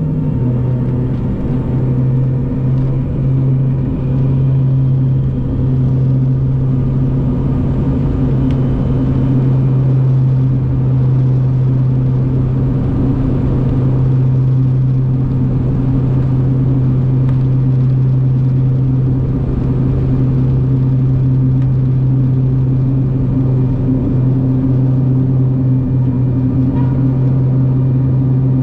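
BAe Jetstream 41 turboprop's Garrett TPE331 engines and propellers running steadily: a constant low propeller drone with a higher engine hum layered over it.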